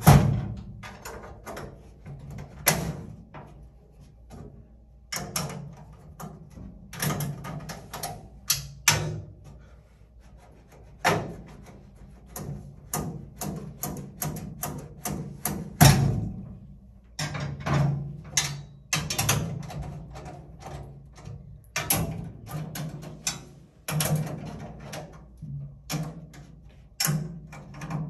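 Irregular metallic clicks, taps and knocks as screws and a screwdriver work on steel brackets inside a bill-changer cabinet, with music underneath.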